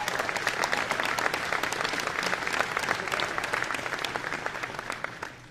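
Audience applauding: dense, even clapping that fades away near the end.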